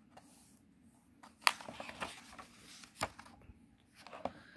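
Paper pages of a picture book being turned: soft rustling with a few sharp paper snaps, the loudest about a second and a half in.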